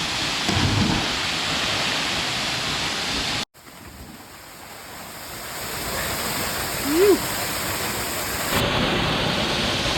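Waterfall rushing steadily, with a brief louder sound about half a second in. Around three and a half seconds the sound cuts out abruptly, then comes back muffled and slowly swells, clearing again near the end.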